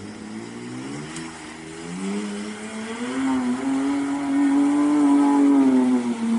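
Car engine revving hard under load as it ploughs through deep mud and water. The pitch climbs over the first few seconds and holds high, easing slightly near the end, and the sound grows louder as the car comes closer.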